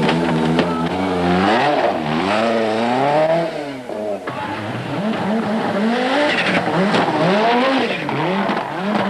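A 1985 Group B rally car engine at full effort on a gravel special stage. The engine pitch holds, then climbs and drops again and again through gear changes and throttle lifts, with a brief dip in loudness about four seconds in.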